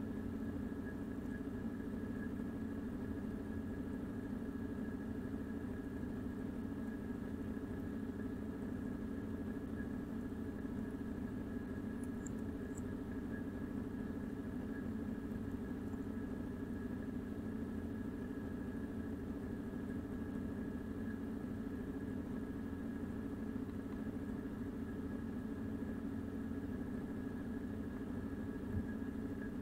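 Steady low hum with a faint high-pitched whine running over it, unchanging throughout: background machine or electrical noise picked up by the recording microphone.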